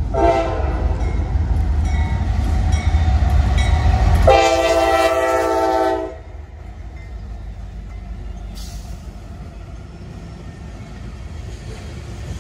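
Norfolk Southern diesel freight locomotives approaching over a low rumble, the lead unit's air horn sounding a short chord just after the start and a longer, louder one from about four to six seconds in. After the horn the quieter steady rumble of the train's hopper cars rolling by.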